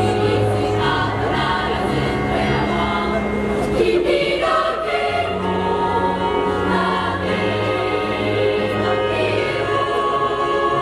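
A school choir of boys and girls singing in chorus, holding long notes that change every second or so.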